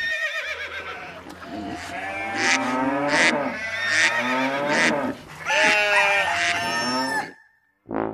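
Recorded farm animal calls, several overlapping wavering calls with cattle mooing and bleating among them. They cut off suddenly near the end.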